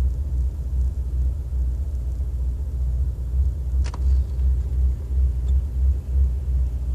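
BMW M73 V12 engine idling roughly from cold, a low rumble that pulses unevenly. Diagnostics read random misfires in all cylinders, and the engine shakes at idle. A single sharp click about four seconds in.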